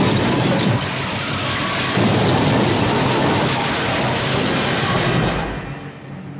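Loud, dense rumbling roar of a film's spacecraft crash-landing sound effects, easing slightly about a second in and dying away near the end.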